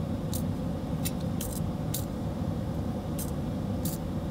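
Small steel screws and washers clicking against each other as lock washers and flat washers are threaded onto M5 hex-head screws by hand, about eight light clicks. A steady low hum runs underneath.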